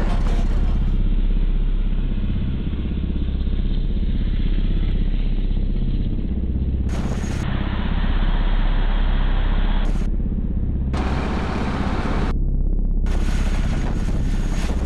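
Jeep Cherokee XJ driving, heard from inside the cabin: a steady low engine and road rumble.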